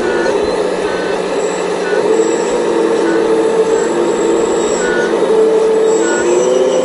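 Full-size excavator's diesel engine running under changing load, its pitch shifting up and down as it digs, with short high squeaks every second or so.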